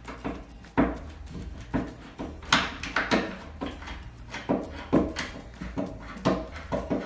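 A loose kitchen cupboard door hinge being re-tightened with a screwdriver: an irregular run of clicks, knocks and short scrapes from the screwdriver, the screws and the hinge and door.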